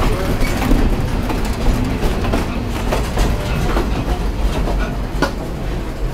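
A passenger railroad coach in motion, heard from aboard: a steady low rumble of wheels on the track with scattered clicks and rattles, and one sharper knock about five seconds in.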